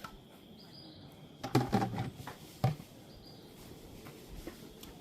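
A short burst of clattering knocks about a second and a half in, with one more knock about a second later.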